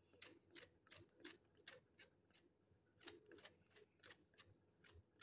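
Faint, crisp clicks, about two or three a second, of a small knife slicing through a fresh okra pod, cutting it into rounds.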